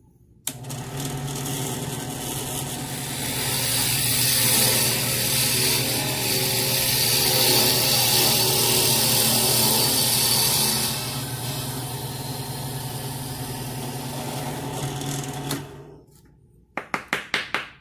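Benchtop drill press switched on, its motor running steadily, with a louder cutting noise from about 2 to 11 seconds as the 3/8-inch twist bit bores down into the wooden block. The motor cuts off near the end, followed by a quick run of sharp knocks.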